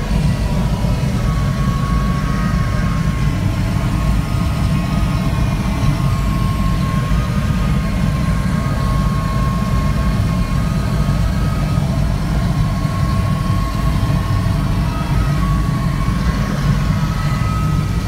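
Loud, steady rush of airflow around the ASK 21 glider's cockpit and canopy in a fast descent, with a faint high whistle that drifts slightly in pitch.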